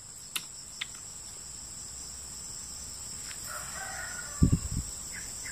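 A rooster crows once, faintly, about three and a half seconds in, over a steady high insect drone. A few low thumps follow right after it.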